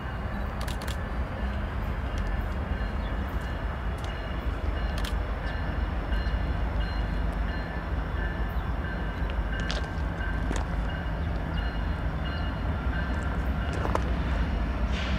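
Norfolk Southern mixed freight train rolling past with a steady low rumble. Faint high, thin squealing tones run through it, and there are occasional sharp clicks.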